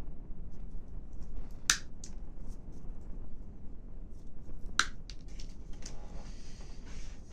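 Small clicks and taps from hand work with thin wooden craft sticks, with two sharp clicks about two and five seconds in and a short scraping sound near the end.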